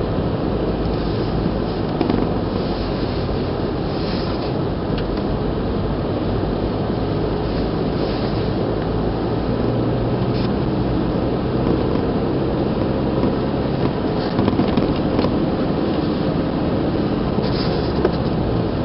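Car driving, heard from inside the cabin: a steady drone of engine and tyre noise on tarmac, with a few short knocks and rattles scattered through it.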